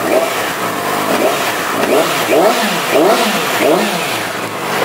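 2009 Yamaha YZF-R6's 600 cc inline-four running and revved in repeated quick throttle blips, the pitch rising and falling each time, through its titanium GP-mount exhaust.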